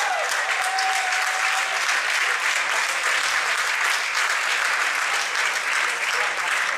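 An audience applauding in steady, dense clapping.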